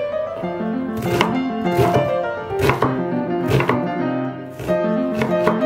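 Kitchen knife dicing an onion on a wooden cutting board, with irregular chopping strokes about every half second to a second, over background piano music.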